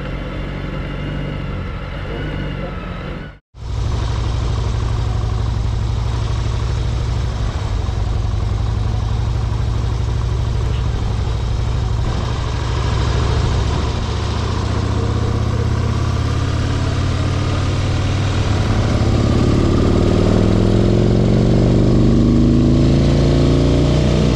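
Harley-Davidson touring motorcycle's engine running while riding, recorded from a camera mounted low on the bike. At first it is quieter, as the bikes pull away on a dirt road. The sound drops out briefly about three seconds in, then runs loud and steady, and rises in pitch near the end as the bike accelerates.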